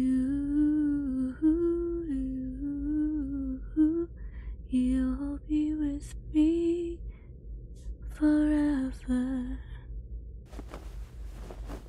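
A woman humming a slow, lullaby-like melody without words, held notes stepping up and down, which stops about two seconds before the end; a few faint clicks follow.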